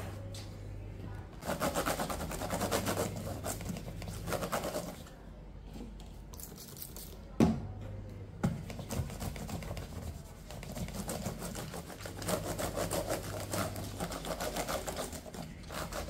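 A tissue rubbed briskly over a laptop's keys and screen, a rapid scratchy rubbing in two spells. A single sharp knock comes about seven seconds in, with a lighter one a second later.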